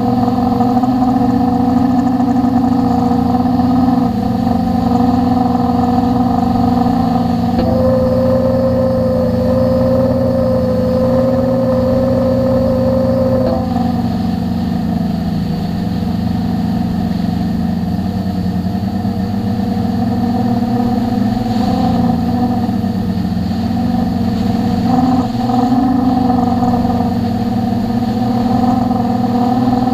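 Quadcopter's electric motors and propellers running in flight, heard up close from the camera on the drone: a steady hum with a few small shifts in pitch as the throttle changes, about 8, 13, 22 and 25 seconds in.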